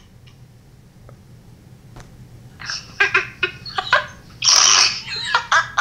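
Girls' high-pitched giggling and shrieking laughter, starting about three seconds in as a string of short bursts, loudest in one long breathy shriek near the end.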